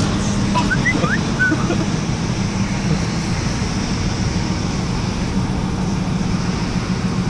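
Steady road noise inside a moving car's cabin: engine hum and tyre rumble at highway speed. A few short, high squeaks come about a second in.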